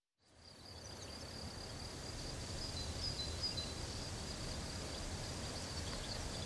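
Countryside ambience fading in: a steady high insect trill with short bird chirps over it, above a low rumble.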